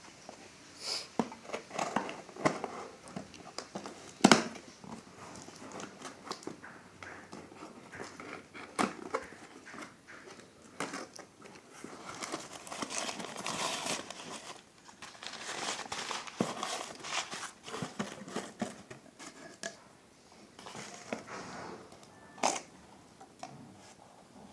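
Watch packaging being unwrapped and handled: crinkling wrapping with scattered clicks and knocks of the box, one sharp knock about four seconds in the loudest.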